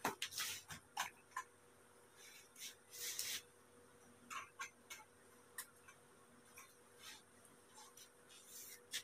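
Clothes hangers clicking and scraping against the metal rail of a clothes rack, with fabric rustling as garments are hung and moved: a run of sharp clicks in the first second and a half, then scattered softer rustles and clicks.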